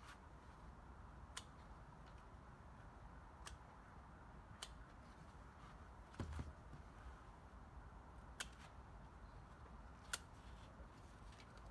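Hand harvest snips clipping tomato stems: about five sharp single clicks, one to four seconds apart, with a soft thump about six seconds in.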